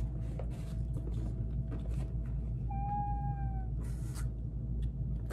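Cardboard box flaps and crumpled kraft-paper packing rustling in short crackles as a plant shipping box is opened, with one high, nearly level call lasting about a second midway.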